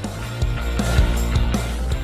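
Background music: a song with a sustained deep bass line and drum hits.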